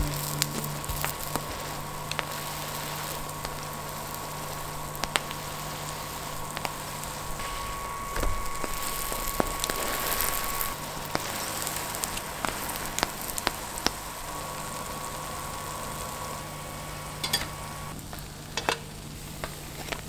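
Hotteok (Korean sweet filled pancakes) sizzling as they fry in oil in a pan, with occasional clicks and scrapes of wooden spatulas flipping and pressing them.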